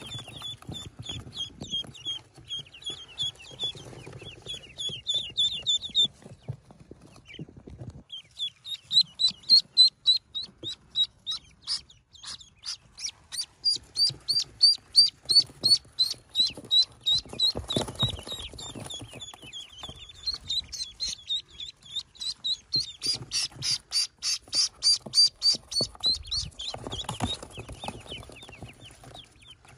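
A newly hatched duckling peeping: long runs of short, high, falling peeps, several a second, with a pause of about two seconds around six seconds in. Faint rustling from handling lies underneath.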